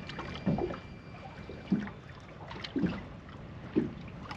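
Water lapping against a small fishing boat, with four short low sounds about a second apart.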